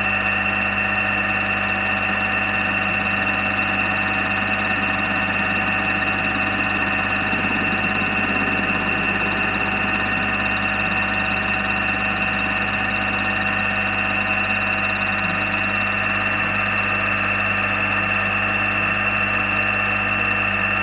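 Milling machine running steadily, cutting a radius on the end of a small hinge piece held on a rotary table. The whine holds the same pitch throughout, with no starts or stops.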